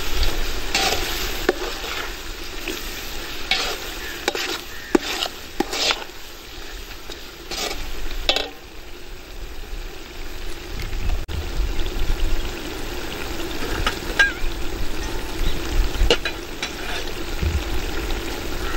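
Metal ladle clinking and scraping against a metal pot while stirring an onion-tomato masala frying in oil, with a steady sizzle underneath. The clinks come often in the first half and thin out later.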